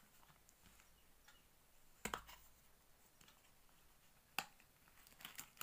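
A few faint clicks and taps of a cardboard product carton being handled and opened: one about two seconds in with a dull knock, a sharp one past four seconds, and a small flurry near the end.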